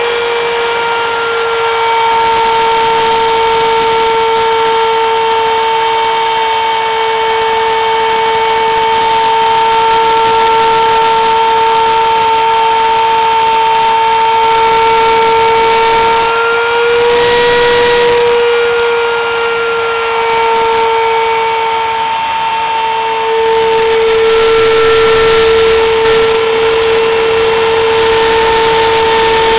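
Router spindle of a homemade CNC mill running at high speed with a steady high-pitched whine while its bit cuts into a wooden board. The pitch wavers slightly a little past halfway as the cutting load changes.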